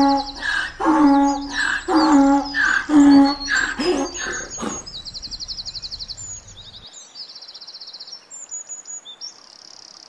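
Donkey braying, a run of hee-haw calls that stops about halfway through, over small birds chirping and trilling throughout.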